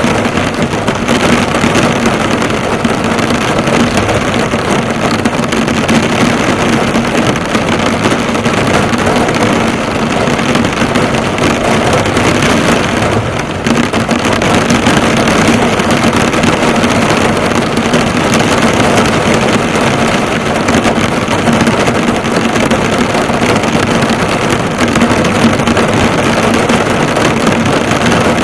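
Heavy rain drumming steadily on a car's bonnet and body, heard from inside the car, with a faint steady low hum underneath.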